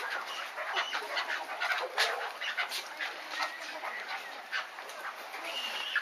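A flock of chukar partridges calling: many short chirps and clucks overlapping, with one longer, steady high call near the end.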